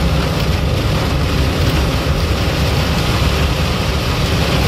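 Steady, loud noise inside the cab of a container lorry driving in a heavy downpour: engine and tyre noise mixed with rain beating on the cab and wind.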